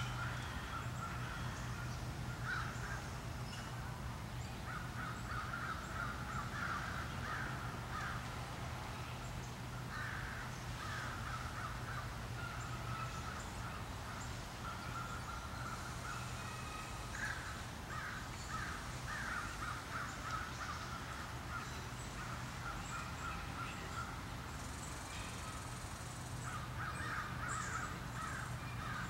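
Birds calling in repeated bouts of short calls, over a steady low hum.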